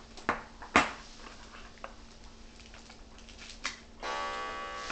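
A few light clicks of small Beyblade parts being set down on a tabletop, the loudest a little under a second in. Near the end a steady pitched hum with many overtones comes in.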